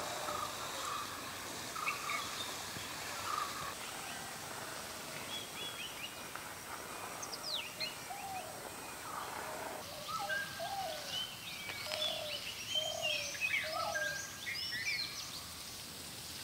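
Several wild birds calling and singing at once, with short chirps, whistled notes and quick high sweeps, over a steady hiss of outdoor background noise. The calling grows busier about ten seconds in.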